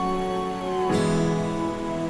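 Background music on acoustic guitar: held chords, with a new chord struck about a second in.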